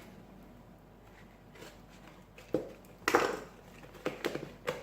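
Package wrapping being handled: a short burst of rustling and crinkling about three seconds in, followed by a few light knocks and clicks near the end.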